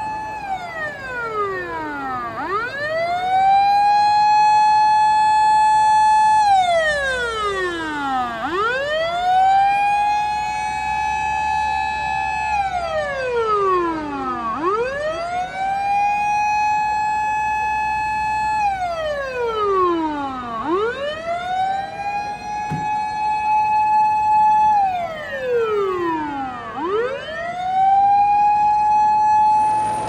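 Japanese fire truck siren wailing: each cycle rises quickly to a high held tone, holds it for a few seconds, then slides straight down, repeating about every six seconds.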